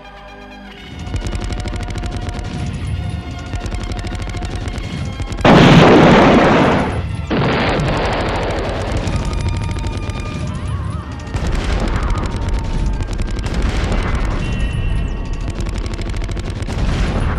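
Gunfire at a shooting range: repeated shots, the loudest a blast about five and a half seconds in, with further loud shots spread through the rest.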